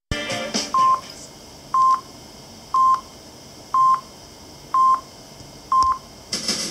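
Six short, steady high beeps, one a second: the radio time-signal pips marking the top of the hour before the news, played through a small wooden FM radio's speaker. Music starts just after the last pip.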